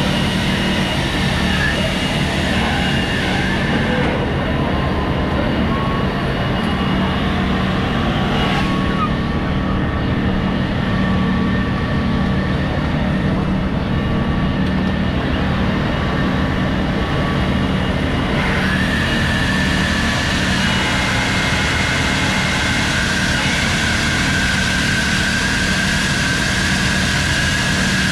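A steady engine drone with a constant low hum and a few faint high steady tones that shift about two-thirds of the way through.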